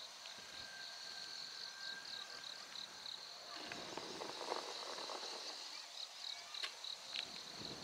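Insects chirping in a steady, high, pulsing trill. Faint rustling in the middle and a couple of light clicks near the end.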